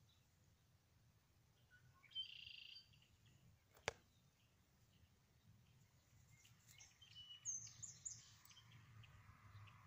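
Near silence outdoors, broken by a few faint, high-pitched chirps: one about two seconds in and a short cluster near eight seconds. There is a single sharp click just before four seconds.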